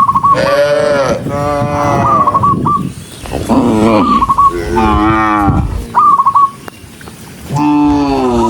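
Cattle mooing, one long call after another, several falling in pitch as they go, with a brief lull about six and a half seconds in.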